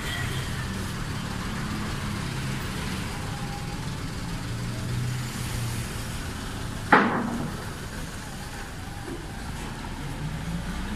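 Diesel engine of a Mitsubishi Colt Diesel Canter truck running at low speed as the truck maneuvers. About seven seconds in there is a single sudden loud burst, after which the engine hum is weaker.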